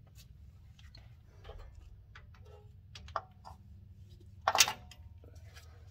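Torque wrench working the bolts on a truck's rear differential cover: scattered light ratchet ticks and small metal knocks, then a sharp double click about four and a half seconds in, the wrench signalling that a bolt has reached its set torque. A low steady hum underneath.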